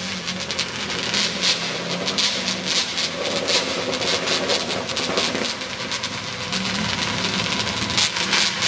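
Small racing machine's engine running steadily at a distance, with a constant crackling hiss over it.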